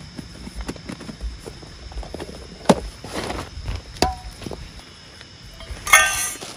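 Irregular knocks, clicks and rustles of things being handled, the loudest a sharp click a little under three seconds in and a brief ringing clatter near the end, over a steady high insect chirring.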